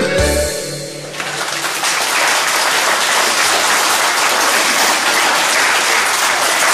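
A live audience applauding steadily, starting about a second in as the opening music ends.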